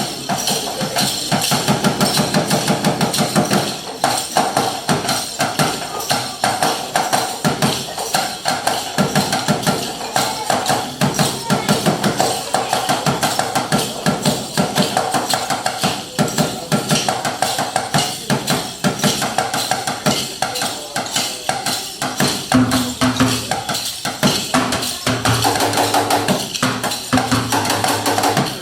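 Live ensemble music driven by dense, fast percussion: rapid knocking and clicking over a held melodic line, with low bass notes joining about three quarters of the way through.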